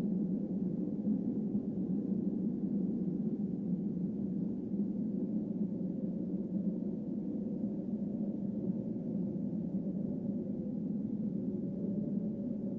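A steady low droning tone that holds without breaks.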